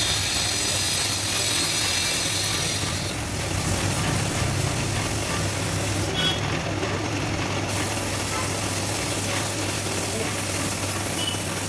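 Compressed-air paint spray gun hissing steadily over the hum of a running air compressor; the spray hiss stops for about a second and a half partway through while the compressor hum carries on.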